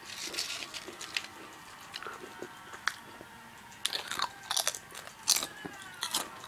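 A person biting and chewing crunchy food right at the microphone: crisp crunches, a few early on, then a louder, denser run of them from about four seconds in.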